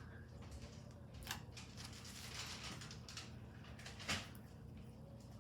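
Hands working slime: two sharp sticky clicks, about a second in and again about four seconds in, with a soft crackling as it is stretched in between.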